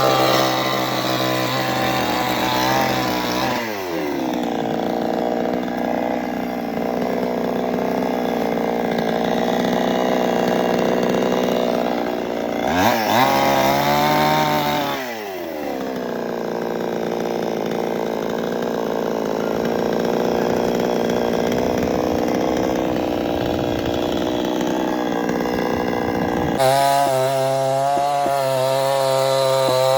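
Two-stroke chainsaw cutting into wood: its high-revving note drops and roughens as the chain bites into the timber. It revs up briefly about halfway through, then settles back under load. It changes abruptly to a clean, free-revving whine near the end.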